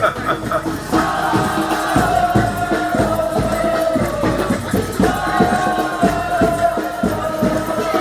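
Community street band of horns and drums playing: the horns hold long notes over a steady, regular drum beat.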